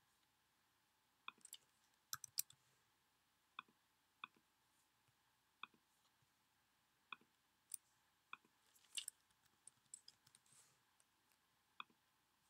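Faint computer mouse and keyboard clicks, about a dozen at irregular intervals, over near silence.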